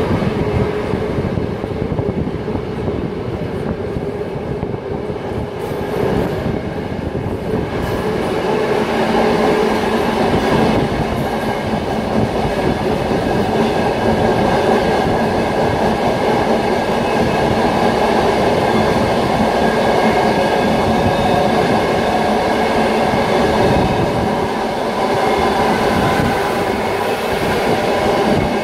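Steam-hauled passenger train running along the track: a steady rumble of wheels on rails, growing louder about eight seconds in.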